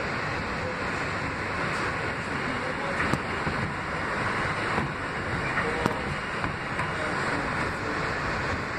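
R160B subway car running on elevated track, heard from inside the car: a steady rumble of wheels on rails with a few sharp clicks.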